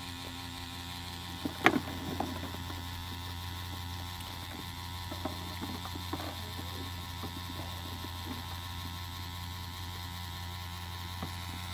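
Small electric diaphragm pump running with a steady low hum, with a sharp click about two seconds in and scattered small rattles. It is running weakly in a limp mode, which the owner puts down to broken diaphragm rubbers causing cavitation.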